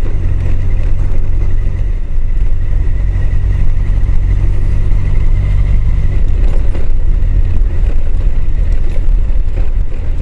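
Heavy wind rumble on a helmet microphone mounted behind the chin-bar air vent, with a Honda CBR1000F's inline-four engine running underneath while riding on an unsealed road. The level is steady, with a faint constant whine.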